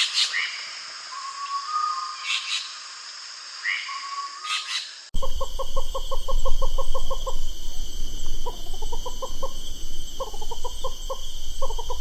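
Forest birds calling over a steady high-pitched insect drone: first a few short calls. About five seconds in, the sound changes abruptly to runs of rapid, evenly spaced stuttering notes, about eight a second.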